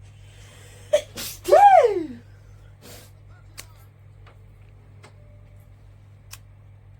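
A person sneezing once about a second in: a sharp burst of breath, then a voiced sound falling in pitch. A low steady hum runs underneath.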